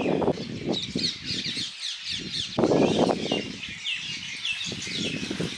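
Birds calling outdoors: quick, repeated high chirping calls. Two louder spells of low rustling noise come near the start and about three seconds in.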